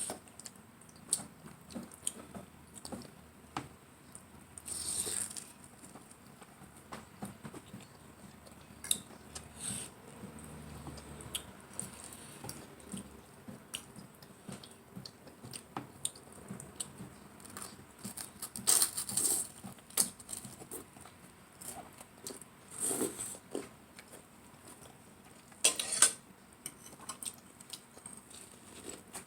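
Close-miked eating: chewing and biting food with small mouth clicks throughout, and a few louder bites spread through.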